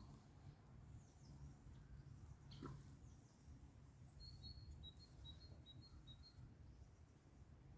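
Near silence: faint outdoor ambience with a low rumble and a few faint bird chirps, including a quick run of short high chirps in the middle.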